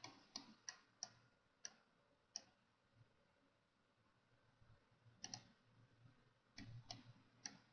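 Faint computer mouse clicks: a handful of single, sharp clicks spaced a fraction of a second apart, a quiet pause of a couple of seconds, then a few more clicks near the end.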